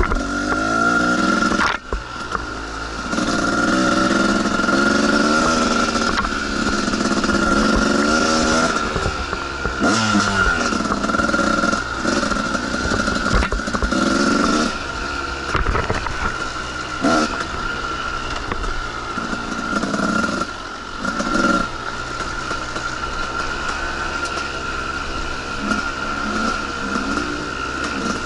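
Two-stroke dirt bike engine revving up and down again and again while riding, with knocks and clatter from the rough trail.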